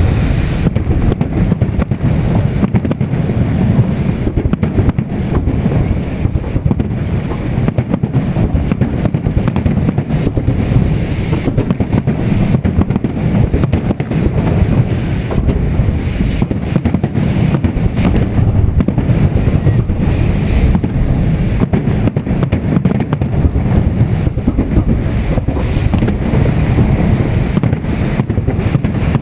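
Strong wind buffeting the microphone in a steady low rumble, with the crackle and thuds of a fireworks salute under it.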